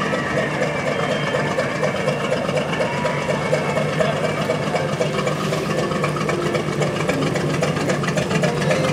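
Antique open-cab fire engine's motor running at low speed as the truck drives slowly past, with a second vintage fire truck running behind it.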